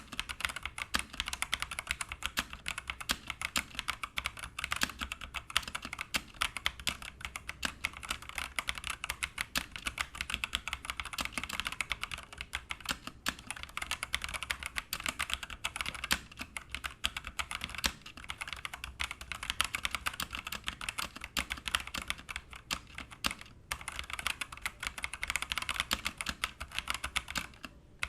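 Continuous fast typing on an EZBoard 61t wireless hot-swappable mechanical keyboard fitted with TnT Pink switches, a steady stream of key clacks.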